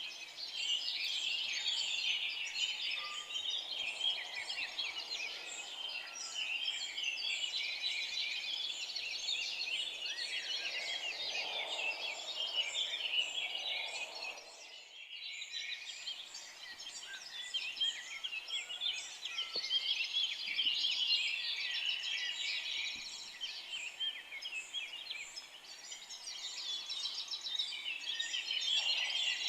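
Dense chorus of many forest songbirds chirping and trilling at once, with a brief drop in the sound about halfway through.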